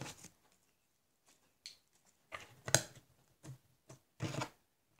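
Small plastic slime tubs being handled: a few short, irregular clicks and rustles, starting about two seconds in, the loudest near three seconds.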